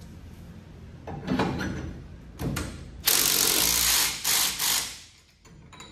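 Cordless power tool spinning a socket to run down the ball-joint nut on a new drop spindle. It runs for about a second starting about three seconds in, then again briefly, after quieter metal handling sounds.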